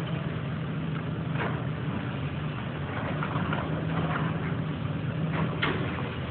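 Diesel engine of a hydraulic excavator running steadily during building demolition, with a few crunches and crashes of breaking debris. The sharpest crash comes near the end.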